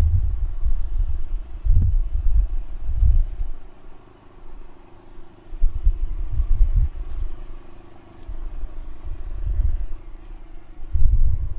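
Wind rumbling on the microphone in irregular gusts, strongest at the start, around a third and halfway through and again near the end, over a faint steady hum.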